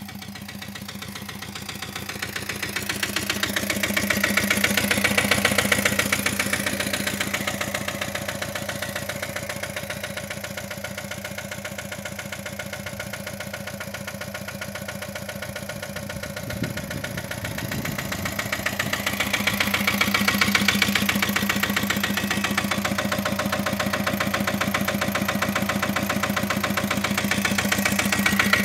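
Pasquali 906 compact tractor's engine idling steadily with a fast, even firing beat, swelling and fading twice.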